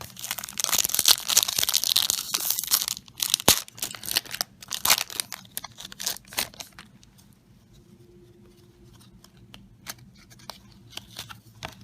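An Upper Deck Digimon booster pack wrapper being torn open. There is a loud stretch of tearing and crinkling for the first three seconds, then scattered crinkles and light clicks that die down about seven seconds in.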